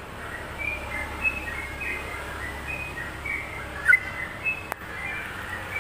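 Caged yellow-vented bulbul (trucukan) singing a string of short whistled chirps, with one louder note about four seconds in. A single sharp click sounds just before the end.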